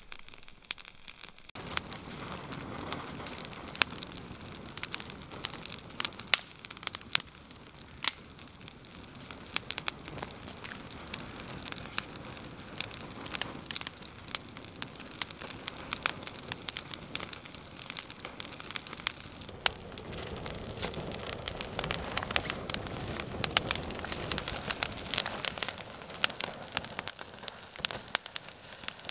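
Birch bark and a bundle of green birch twigs burning, with dense, continuous crackling and sharp pops over a steady hiss, growing somewhat louder about twenty seconds in.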